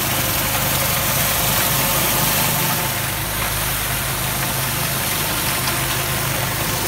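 Pressure washer running steadily: a rotary surface cleaner's water jets hissing on brick paving over a steady low motor hum.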